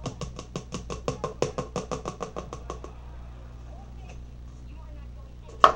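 Quick, even tapping, about seven strokes a second for some three seconds, as a wooden kebab stick stirs acrylic paint in a small cup, then one sharp knock near the end.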